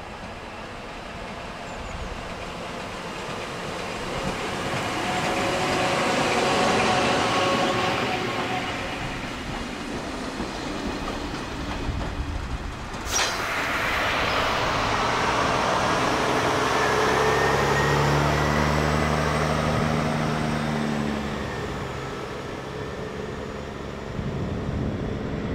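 Train running past, its rolling noise swelling and fading. A sharp click comes about halfway through, then the train noise swells again with a steady hum and a faint rising whine, and cuts off abruptly at the end.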